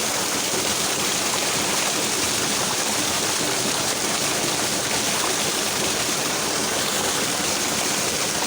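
Fast-flowing water of a small river babbling and splashing steadily over its bed.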